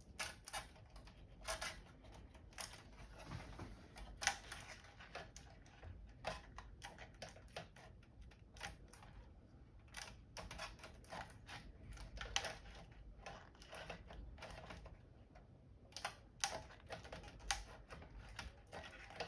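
Irregular light clicks and taps of a monitor's internal part being handled and tried into position in its chassis.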